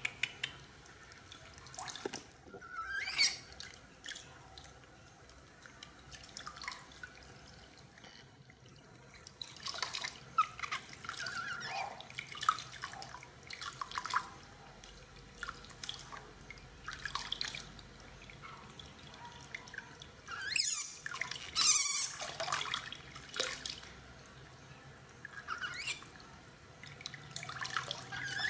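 Water splashing and dripping into a plastic basin as a baby monkey is washed by hand: irregular small splashes and drips, with a louder run of splashing about two-thirds of the way through.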